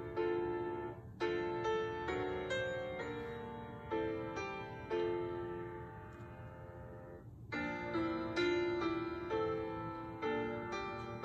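Slow, gentle piano music: notes and chords struck and left to ring away, with one phrase dying out about seven seconds in before the next begins.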